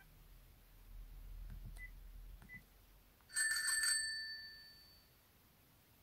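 The Fujitsu F-06D Girls' phone plays its built-in bicycle-bell ringtone through its small speaker. About three seconds in comes one quick trill of rapid bell strikes, under a second long, which then rings out over the next second. A couple of faint clicks come before it.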